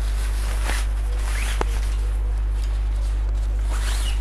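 Zipper on a fabric fishing-rod cover being pulled open in a couple of rising zips, with cloth rustling as the rod is drawn out of the cover. A steady low electrical hum runs underneath.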